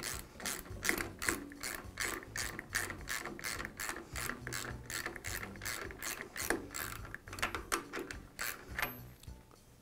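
Ratchet wrench clicking steadily as it tightens the retaining nut that holds a drill press's quill return coil spring in its housing, keeping the tensioned spring from coming free. Even clicks, about three or four a second, stop near the end.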